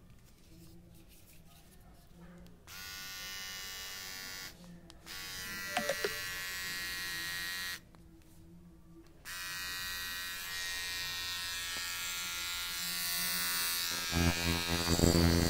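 Xiaomi Mi Beard Trimmer 1C switched on, running with a steady electric buzz, switched off and back on twice, and getting much louder near the end.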